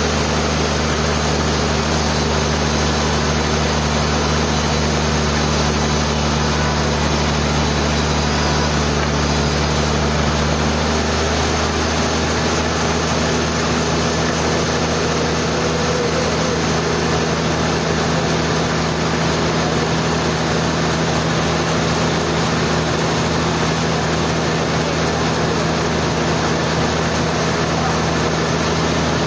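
Sawmill machinery running steadily with a constant low hum and noise, its tone shifting slightly about ten seconds in.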